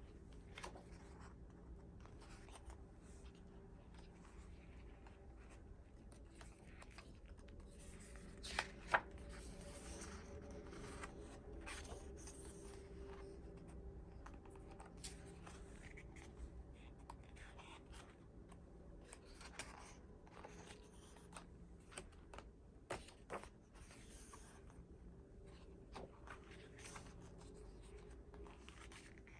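K-pop album packaging and contents being handled by hand: faint paper and plastic rustling with scattered light clicks and taps, and two sharper taps about nine seconds in.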